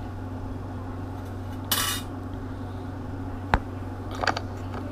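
Steel treble hooks and leader hardware clinking as they are handled, with a short jingling rattle, then a single sharp click a little past halfway and a few small ticks after it, over a steady low hum.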